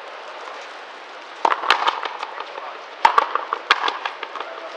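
Frontenis rally: the rubber ball cracking off the players' strung rackets and hitting the frontón wall in a run of sharp impacts that starts about a second and a half in, loud hits about a second and a half apart with smaller clicks between.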